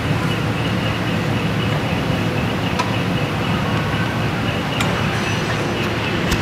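Steady low mechanical rumble with a few faint clicks.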